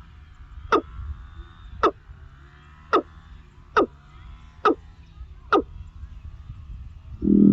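A bird repeating a short, sharply falling call about once a second, six times. Near the end a louder, lower, buzzy call with a steady pitch begins.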